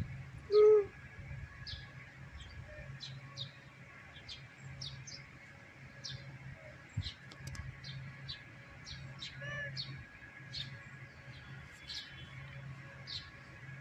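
Birds calling: short high chirps repeating about once or twice a second, with one louder, lower call less than a second in and a fainter one near ten seconds. A low steady hum runs underneath.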